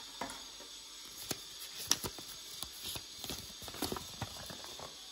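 Irregular light taps and clicks of small plastic items being handled on a wooden table, with the rustle of a paper instruction leaflet being picked up and opened.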